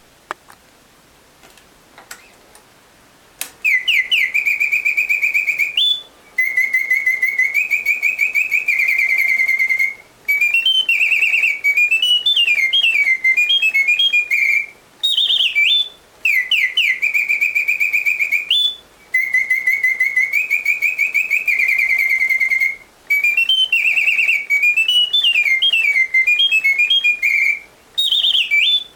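Reuge singing bird cage automaton: its bellows-blown mechanical whistle sings phrases of bird song, with held warbling notes and quick rising trills, broken by short pauses every few seconds. The song starts about three and a half seconds in, after a few faint clicks.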